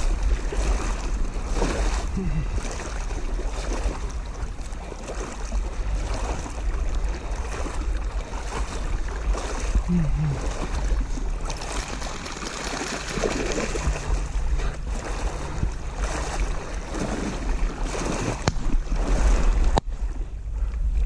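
Wind buffeting the microphone, a steady heavy rumble, over a rushing noise of water and scattered knocks.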